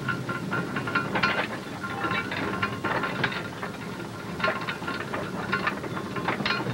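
Mine hoist cage descending a timbered shaft, rattling and clanking irregularly over a steady high whine.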